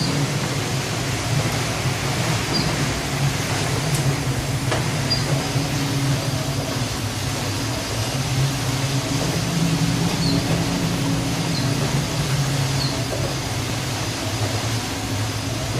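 A steady low mechanical drone, like a large engine running, under an even hiss, with a few faint short high chirps here and there.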